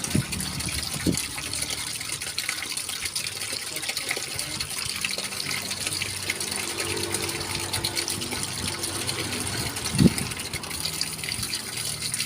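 Tap water running steadily over hands being washed, with a couple of brief low thumps, the louder about ten seconds in.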